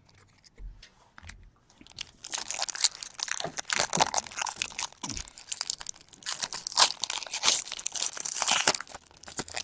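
Foil wrapper of a baseball card pack crinkling and crackling as it is torn open by hand, starting about two seconds in.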